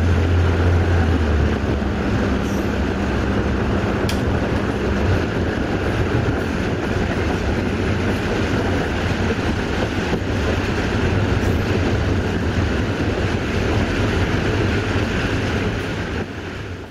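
Malaxa diesel multiple unit running along the line, its diesel engine and wheels on the rails heard through an open window. The deep engine hum eases about a second and a half in, leaving a steady running rumble that cuts off abruptly at the end.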